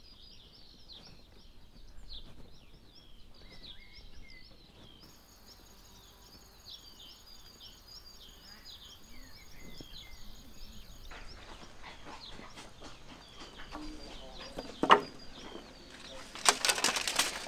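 Birds chirping over and over in short, high, downward-gliding calls, with a faint steady high tone in the middle stretch. A sharp loud knock about fifteen seconds in and a noisy burst of clattering near the end.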